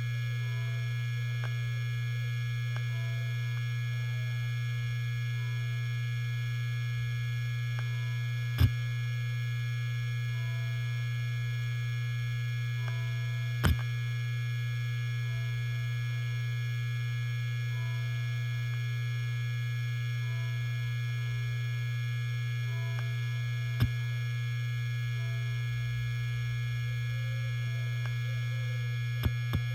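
Helium-filled hard disk drive spinning with a steady hum and high whine. Single sharp clicks from the read/write heads come several seconds apart, four times in all.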